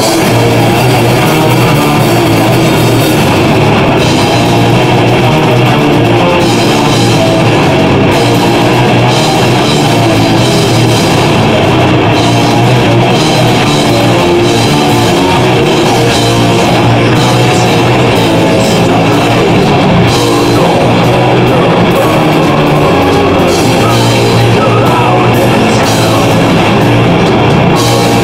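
Progressive metal band playing live at a loud, steady level: two electric guitars, bass guitar and a drum kit with cymbals.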